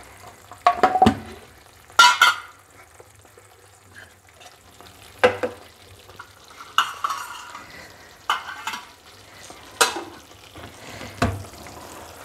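Metal spoon stirring a thick banana-and-jaggery mixture in a kadai, with irregular scrapes and clinks against the pan every second or so, while the mixture fries in freshly added ghee. It is being stirred without a break as it cooks down to a dry, thick toffee mass.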